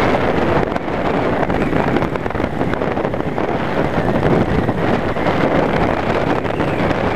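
Wind rushing and buffeting over the microphone of a camera on a Yamaha Wildstar V-twin cruiser riding at steady speed, with the motorcycle's engine and road noise underneath.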